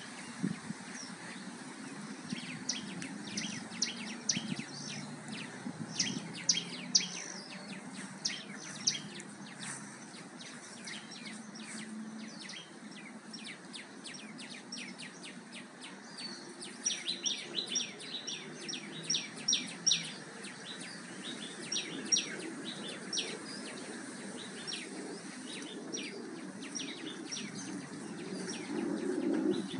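Birds chirping in many short, sharp calls, with a busier run of chirps a little past the middle, over a low steady background rumble, as picked up by a Xiaomi Redmi 4X phone microphone.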